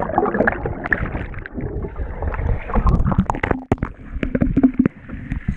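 Muffled underwater sound of swimmers churning the pool water, with bubbling and many dull knocks and sloshes, heard through a camera held under the surface. Clearer open-air sound returns right at the end as the camera comes up out of the water.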